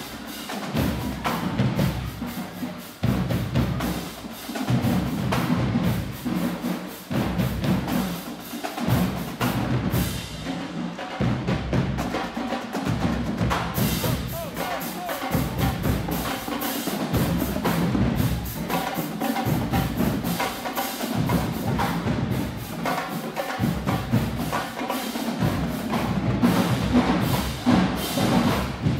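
Marching band drumline playing a fast cadence: dense snare and stick hits over pulsing bass drums.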